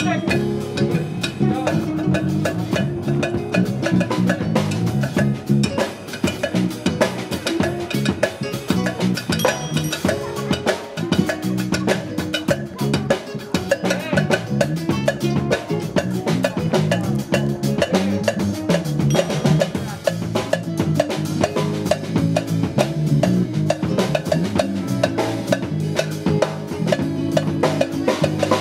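Small jazz group playing live, with a busy drum kit to the fore over electric bass and keyboard.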